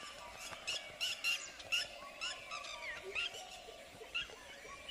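Lapwings giving repeated sharp, high alarm calls, about two a second, some with a short falling slur, as they mob a dhole, a predator near their nest and chicks.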